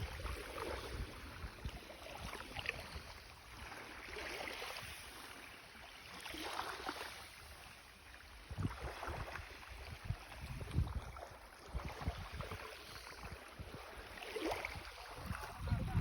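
Calm sea: small waves washing in and out in slow swells of hiss, with wind buffeting the microphone in gusts.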